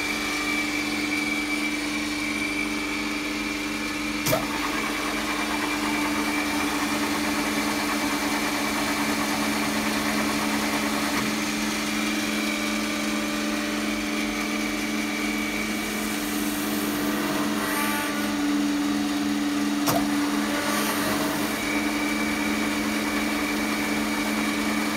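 Transformer oil filtration plant running, its motor-driven pumps giving a steady hum with a thin high whine over it. Two sharp clicks, about four seconds in and again about twenty seconds in.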